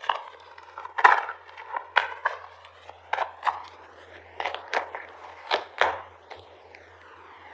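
Tarot cards being handled and laid down on a table: a series of sharp, irregularly spaced clicks and snaps.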